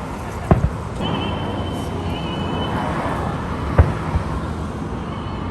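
Aerial fireworks bursting: two sharp booms about three seconds apart, each followed quickly by a smaller report, over a steady outdoor background.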